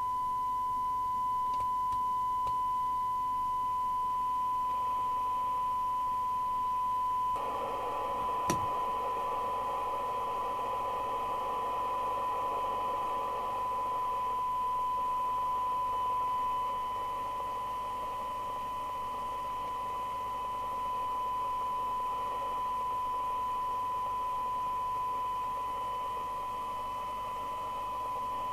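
A steady, pure test tone from the receiver audio of a Domico Convoy FM CB radio under sensitivity (SINAD) testing: the demodulated tone of a modulated test signal. About seven seconds in, a rushing receiver noise joins the tone, and a single sharp click follows about a second later.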